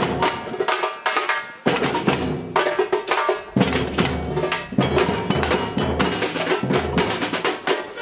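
Samba percussion band playing: large surdo bass drums keeping a pulse under snare-type drums and small hand percussion. The bass drums stop twice briefly, about a second in and again past the three-second mark, leaving only the higher drums and bells before the full band comes back in.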